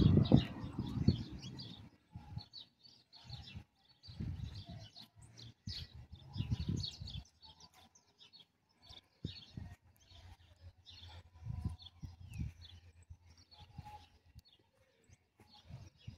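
Small birds chirping, many short high calls throughout, with a low rumble now and then.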